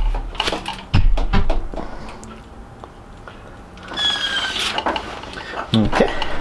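Bicycle wheel with a hub dynamo being spun by hand: several sharp knocks in the first second and a half as the wheel is pushed round, mechanical clicking as it turns, a brief high whine about four seconds in, and another knock near the end.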